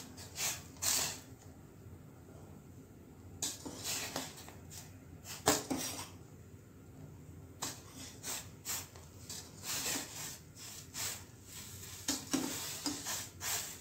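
Metal spoon scraping and knocking against the side of a metal pot, with irregular clinks, while stirring rice-flour dumplings in boiling water to keep them from sticking together.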